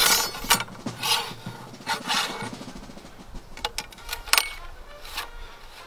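Metal ramrod sliding and knocking inside a flintlock musket barrel as the cartridge is rammed down: a run of sharp scrapes and taps in the first couple of seconds, then a few more strokes later on.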